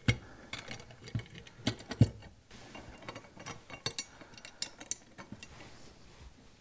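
Irregular clicks and knocks of small metal parts being handled and fitted as P-clamps go onto a motorcycle handlebar, with the sharpest knocks right at the start and about two seconds in.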